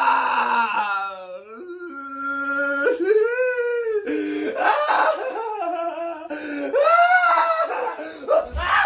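A man wailing and crying without words: a long falling cry, then a string of drawn-out cries that rise and fall in pitch.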